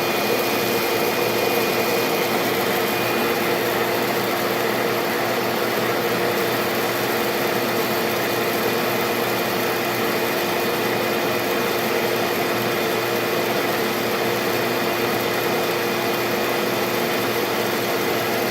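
Suction blower of a homemade hemp seed cleaner running, a constant hum over rushing air. The air it pulls through carries dust and small impurities out of the seed.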